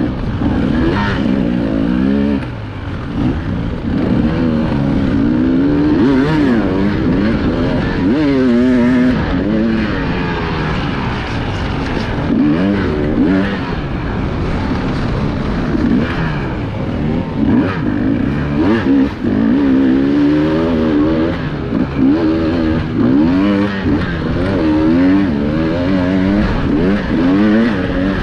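Enduro dirt bike engine heard from on the bike, revving up and down continually as the throttle is opened and closed, its pitch rising and falling every second or two.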